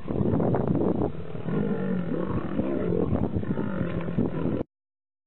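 Lions growling in a series of deep, wavering calls as they confront a crocodile; the sound cuts off abruptly near the end.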